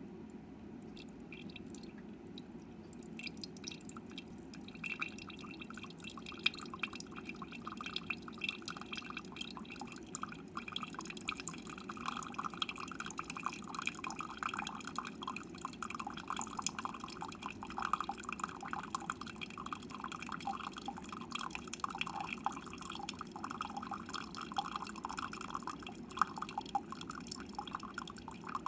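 Instant Solo single-serve coffee maker brewing: coffee trickles and drips into the mug in a dense crackle that builds from a few seconds in, over the machine's steady low hum.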